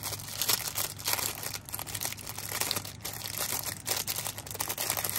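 Packaging crinkling and rustling in irregular crackles as it is handled, likely as the new wall-hanging hook is unwrapped.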